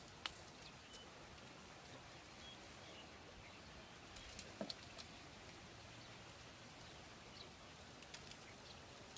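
Near silence: faint outdoor background with a few soft clicks and crackles and a couple of brief faint chirps.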